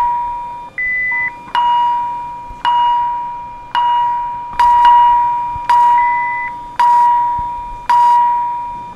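Electronic alarm chime struck about once a second, each ring fading before the next, with a short, higher, steady beep twice.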